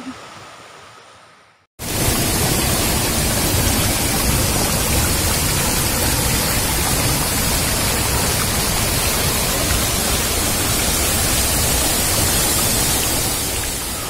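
Waterfall and water pouring over boulders, heard close as a loud, steady rush that cuts in suddenly about two seconds in, after a brief fade to silence.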